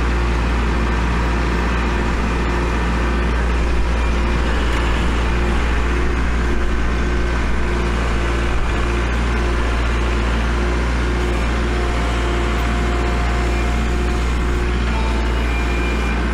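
Kubota L4701 tractor's four-cylinder diesel engine running steadily under load as the tractor pushes snow on chained tires.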